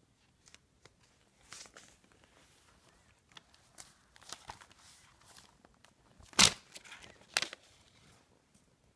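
Paper pages of a spiral-bound notebook rustling and crinkling as a small child handles them, with scattered soft clicks and two sharper knocks, about six and a half and seven and a half seconds in.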